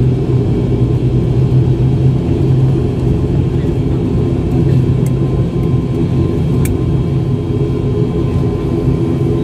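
Steady cabin drone of an ATR turboprop airliner's engines and propellers, a low hum with several steady tones, as the aircraft rolls along the runway after landing.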